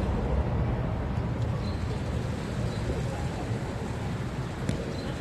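Outdoor ambience: a steady low rumble with a few faint, short high chirps and one sharp click near the end.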